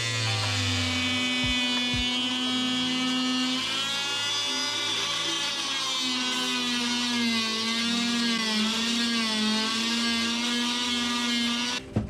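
Background music: sustained wavering tones over a stepping bass line with a few drum beats near the start, cutting off abruptly just before the end.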